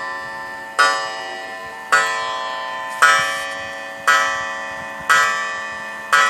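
Mid-1800s French mantel clock striking the hour of nine on its gong. The strikes come about a second apart, each ringing with several tones and fading slowly before the next.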